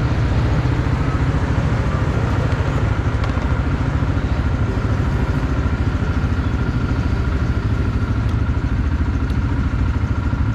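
Quad bike (ATV) engine running steadily, with a dense, even throb.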